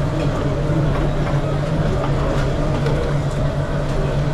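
Steady mechanical drone of a busy commercial kitchen, as from extraction fans and running equipment, with a few faint clicks and clinks.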